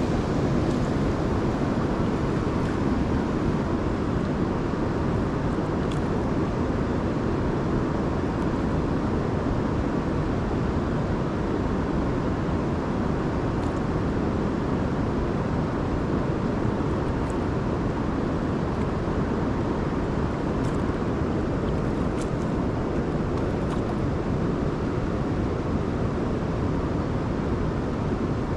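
Steady rushing of river current, with a few faint ticks scattered through it.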